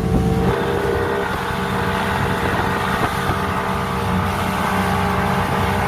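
Speedboat engine running steadily at speed; its tone changes about half a second in.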